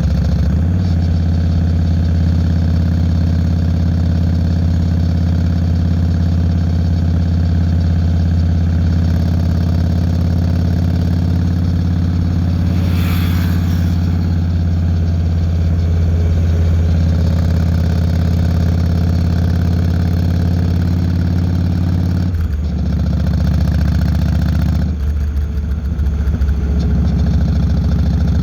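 Yamaha Road Star 1600's carbureted V-twin running steadily through Vance & Hines Longshots exhaust. Its note drops lower about 22 seconds in and briefly eases off a few seconds later, with a short hiss about 13 seconds in.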